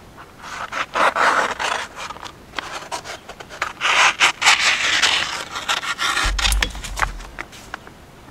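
Paper-backed vinyl decal sheets being handled, rubbing and scraping in two long stretches, with scattered crisp clicks and a short low bump about six seconds in.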